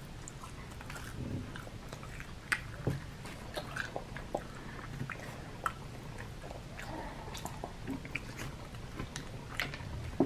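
Close-miked chewing and lip-smacking on fried chicken tenders: irregular wet mouth clicks and smacks.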